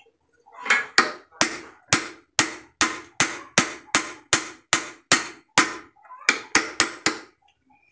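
A hammer taps a steering-gear part to seat it: about thirteen even blows, roughly two a second, each ringing briefly. After a short pause, four quicker taps come near the end.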